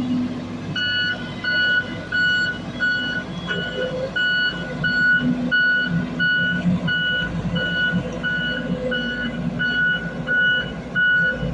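Heavy construction machine's reversing alarm beeping steadily at about one and a half beeps a second, starting just under a second in, over the low rumble of a diesel engine.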